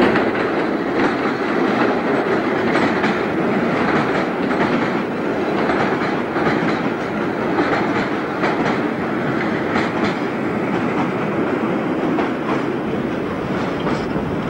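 A British Rail class 485/486 electric train, former London Underground tube stock, running along the pier track. Its steady running noise is broken by irregular clicks of the wheels over the rail joints.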